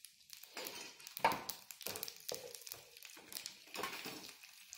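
Wooden spatula stirring and scraping through a tempering of urad dal, mustard seeds, cumin and dried red chillies frying in ghee in a nonstick pan, in irregular strokes over a faint sizzle.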